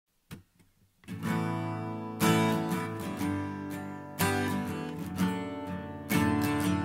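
Solo acoustic guitar starting a song: after a faint click, chords are strummed from about a second in, with a strong new strum roughly every two seconds.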